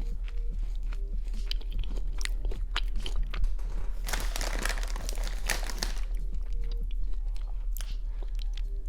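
Close-miked chewing and crunching of Haribo Berries gummy candies, with a run of many small crackles and a denser stretch of crunching about four to six seconds in.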